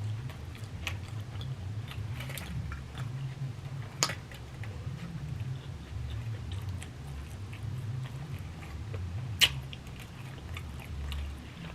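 A person chewing a mouthful of steak, chicken, rice and beans close to the microphone, with continuous wet chewing and two sharp clicks, one about four seconds in and a louder one about nine seconds in.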